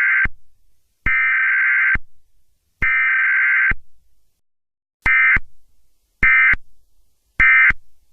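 Emergency Alert System digital data bursts, the screeching two-tone SAME code. The tail of one long burst is followed by two more long bursts of about a second each (the alert header), then three short bursts about a second apart (the end-of-message code).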